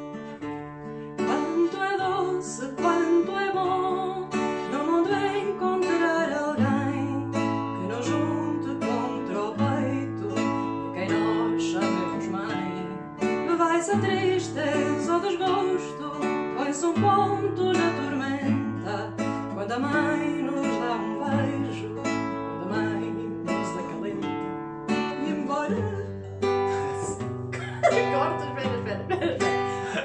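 Background music led by plucked acoustic guitar over held bass notes, getting louder about a second in.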